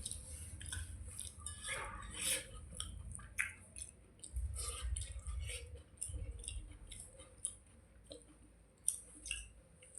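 Wet chewing and mouth sounds of someone eating panta bhat, rice soaked in water, with many small irregular clicks and squelches.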